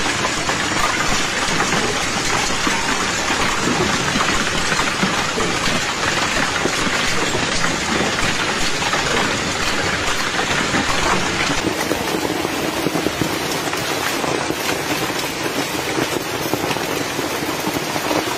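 Hailstorm: hailstones pelting down hard and steadily on the ground and garden objects, a dense, continuous clatter.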